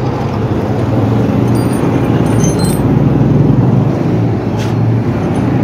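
Steady road traffic noise with a low engine rumble from passing vehicles. Light metallic clinks about one and a half to three seconds in as open-ended spanners and a box spanner are tipped out of a cloth tool pouch onto concrete.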